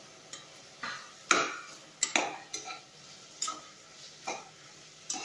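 A perforated metal ladle scraping and clinking against the inside of an aluminium pressure cooker as chopped onions and tomatoes are stirred and sautéed, in about nine separate strokes.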